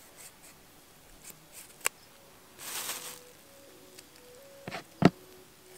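Knife cutting a lime in half by hand, with small handling noises: a few sharp clicks, a short hiss about two and a half seconds in, and two louder clicks near the end.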